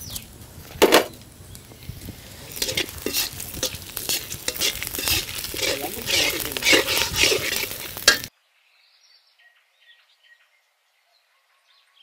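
Mustard seeds, chana dal and urad dal sizzling in hot oil in a black kadai for a tempering, with a metal ladle scraping and clinking against the pan as they are stirred. The sound cuts off suddenly about eight seconds in.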